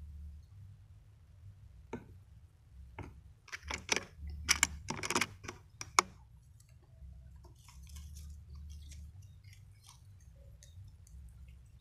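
Handling noise close to the microphone as the air rifle and its scope-mounted camera are moved and re-aimed: a run of rustles and clicks, densest a few seconds in and ending in a sharp click about halfway through, over a low steady rumble. Fainter scattered ticks follow.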